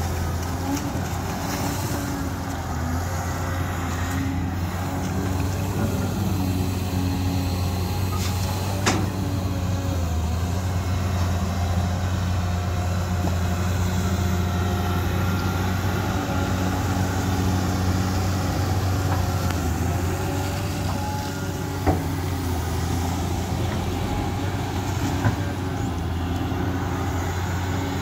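Cat tracked excavator's diesel engine running steadily under working load, its note shifting a little as the machine digs, swings and dumps. A few sharp knocks stand out, about a third of the way in and twice more in the last third.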